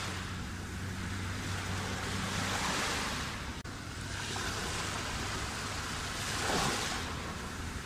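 Sea waves washing onto the shore in slow surges that swell and ease, with the loudest wash about six and a half seconds in.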